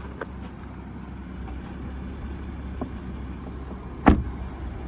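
A 2016 Ford F-150's cab door shut with one loud thud about four seconds in, over a low steady rumble and a few faint clicks.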